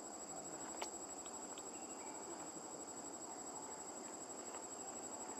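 Faint steady outdoor background hiss with a thin high steady tone, broken by one sharp click a little under a second in and two fainter ticks shortly after.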